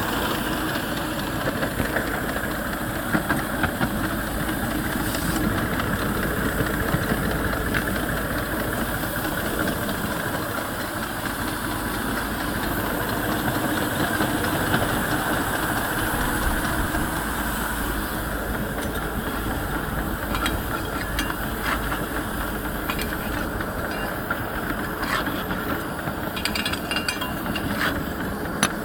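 Miniature steam locomotive, a Romulus, running along the track: a steady hiss of steam with the running noise of the engine. Scattered sharp clicks and knocks come through, more often in the second half.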